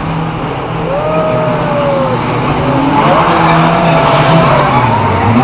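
Stock cars racing round a speedway oval, engines running hard and getting louder, with long drawn-out tyre squeals about a second in and again from about three seconds.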